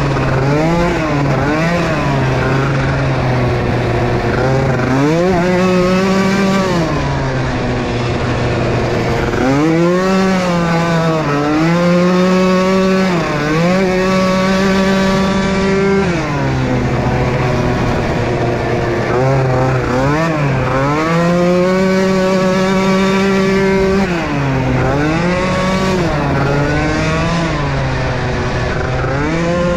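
Small youth racing ATV engines at full throttle on a motocross track, the pitch rising and dropping every second or two as the riders get on and off the throttle, with longer high-revving pulls in between.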